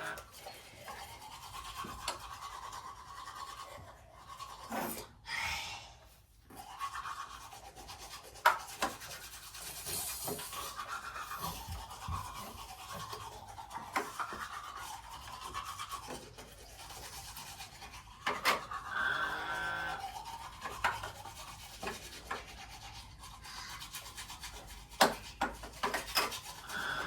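Continuous rubbing, scrubbing sound, wavering in level, with scattered small clicks and knocks.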